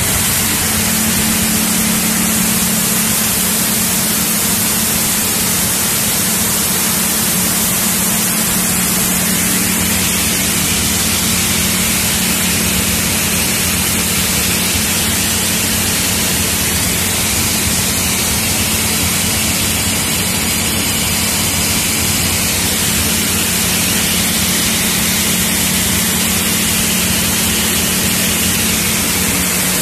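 Soybean cleaning-line machinery running with beans streaming through its outlets: a steady, loud hiss over a constant low hum.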